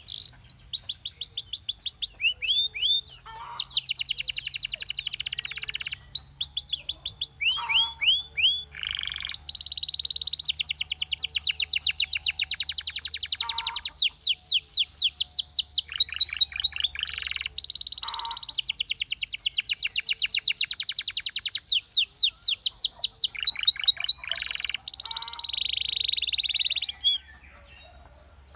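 Canary singing long, fast trills and rolls of rapidly repeated notes, broken by short pauses, until it stops near the end.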